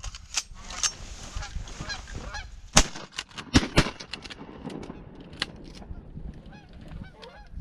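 Three shotgun blasts a little under three seconds in, the last two in quick succession, fired at geese flying overhead, with goose honking around them.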